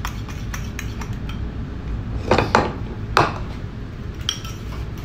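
Metal spoon stirring a thick sauce in a ceramic bowl, clicking and scraping against the bowl, with a few short ringing clinks near the end.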